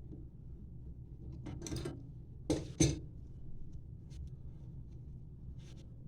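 Handling noise from working on the toilet's parts: a brief scrape, then two sharp knocks about a third of a second apart, over a low steady hum.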